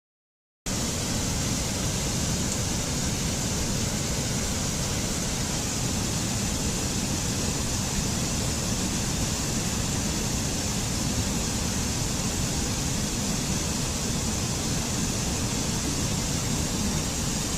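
Steady rushing of a waterfall, an even, unbroken wash of water noise that starts abruptly after a moment of silence.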